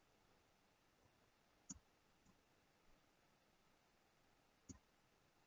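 Near silence with two faint computer mouse clicks, about three seconds apart.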